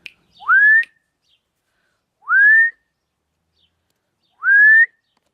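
Three short whistles about two seconds apart. Each is a clean note that sweeps upward and levels off at the top.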